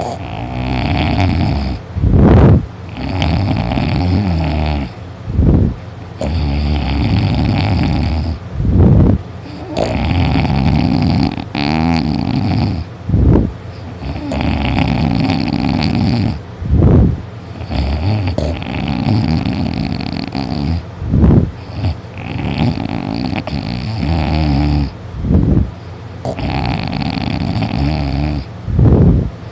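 A sleeping person snoring very loudly from the soft palate. Each breath gives a long snore of two to three seconds, broken by a short, louder burst, with a cycle roughly every three to four seconds.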